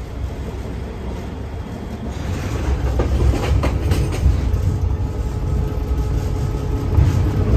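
Moving passenger train: a steady low rumble that grows louder about two seconds in, with a quick run of clacks from the wheels crossing rail joints.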